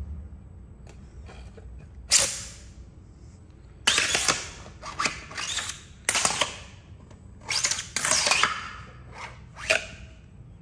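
Nested plastic segments of a 3D-printed print-in-place collapsing drill sword sliding and clacking as it is flicked out and collapsed, in about half a dozen short, sharp clattering bursts.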